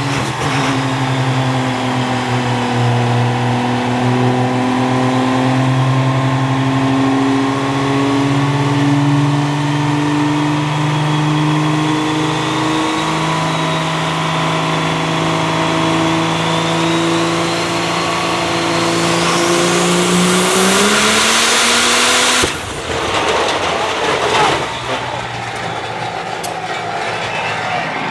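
Diesel pickup truck engine run flat out on a chassis dyno: a loud, steady drone with a high whine, climbing in pitch before it suddenly fails with a loud bang about three-quarters of the way through, followed by a rougher, broken noise. The failure is shown as what pre-ignition does to a piston engine.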